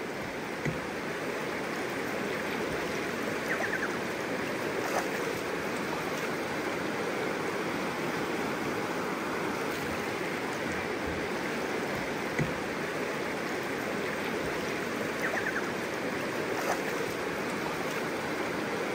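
A shallow river running over stones: a steady rush of water with a few faint small splashes.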